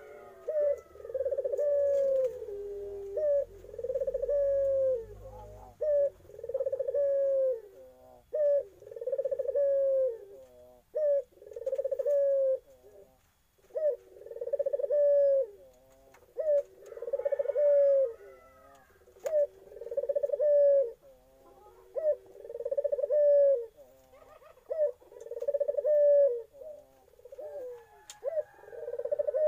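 A young puter Irak collared dove cooing over and over: a long series of low, rolling coos, roughly one every one to two seconds, with a short lull about thirteen seconds in.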